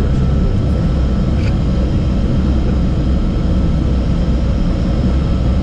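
Steady cockpit noise of a Learjet 45XR business jet on final approach: a loud, even rumble of airflow and turbofan engines, with a faint steady whine above it.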